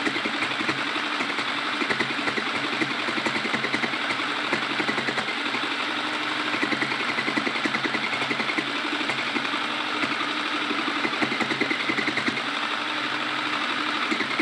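Electric sewing machine running, its needle stitching a seam in a rapid, even rhythm.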